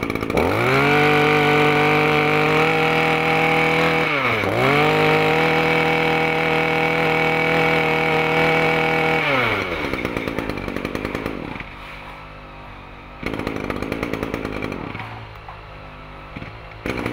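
Small two-stroke brush cutter engine revved hard: it goes up to full throttle about half a second in, dips briefly and picks up again around four seconds, holds high until about nine seconds, then drops back to idle with a couple of shorter revs near the end.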